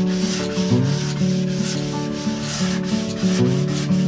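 Sponge sanding block rubbed by hand in quick back-and-forth strokes along the grooves of a painted fluted panel, sanding both sides and the bottom of each groove at once. Background music plays underneath.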